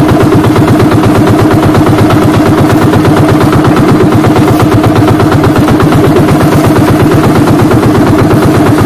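Small fishing boat's engine running steadily close by, a loud, even, fast-pulsing chug.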